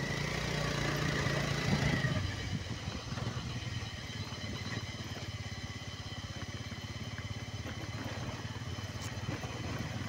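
Motorcycle engine running as the bike rides along, with a steady higher note for about the first two seconds, then dropping to a lower, rougher sound.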